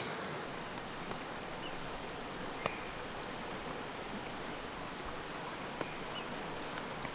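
A small bird chirping steadily, short high chirps at about three to four a second, over an even outdoor background hiss.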